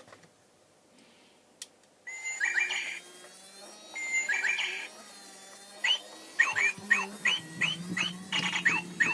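Battery-powered pigeon toy playing a Japanese bush warbler (uguisu) song through its small speaker, not a pigeon's coo. After a click about a second and a half in, it plays two held high whistles, each breaking into a quick 'hokekyo' flourish, then a run of short falling chirps about three a second, over a low steady electronic hum.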